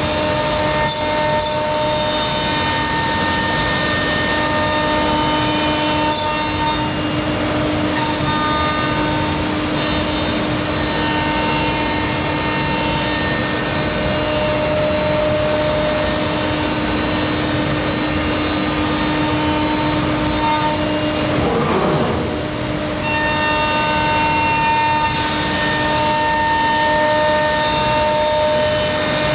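Omnitech Selexx PAL CNC router machining a panel: its spindle gives a steady whine in several tones over a constant rushing of cutting and dust extraction. Some tones come and go as the cut goes on. About twenty-two seconds in, the pitch swoops briefly down and back up while the sound dips a little.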